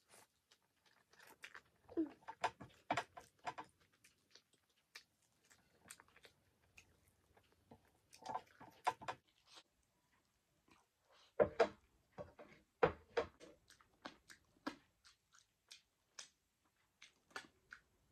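Close-up chewing of a mouthful of rice, dal and saag greens eaten by hand, with irregular wet mouth clicks and smacks.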